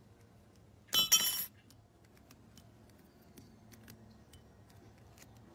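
A short, bright metallic clink and rattle about a second in, from steel tweezers and the thin metal shield covers of an iPhone logic board knocking together. Faint light ticks of the tweezers on the board follow.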